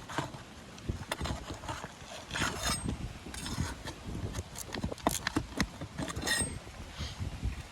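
A hammer knocking and scraping on asphalt roof shingles as old roofing nails are worked loose, in irregular taps and scrapes with a few sharper knocks.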